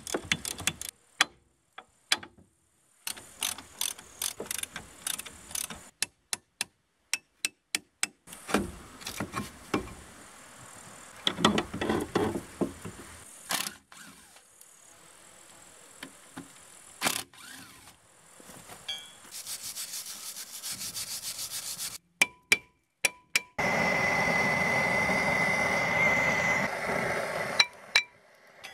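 Hand tools clicking and clanking on a rusted wheel hub and brake parts, in short separate knocks. Near the end, after a few sharp clicks, a portable gas-canister blowtorch burns with a steady hiss and a faint whistle for about four seconds, heating rusted, seized brake parts to free them.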